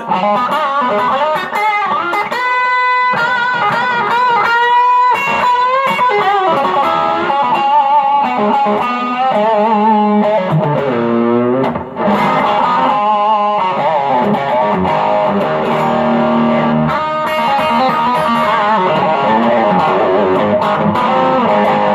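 M-Musi Virgo Fusion electric guitar played through an amp and overdrive pedals: a lead line of held notes with vibrato and bends, and a falling run of notes about halfway through.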